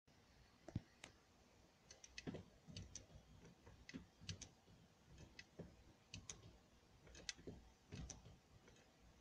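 Faint, irregular light clicks and small knocks, a dozen or so scattered through, a few with a dull low thud.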